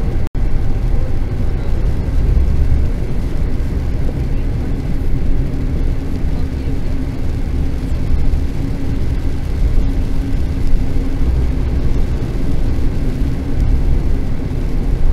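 Steady low rumble of a car driving at highway speed, heard from inside the cabin, with a faint steady hum over it. The sound drops out for an instant just after the start.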